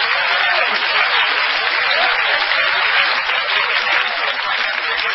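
Live audience laughing and applauding steadily.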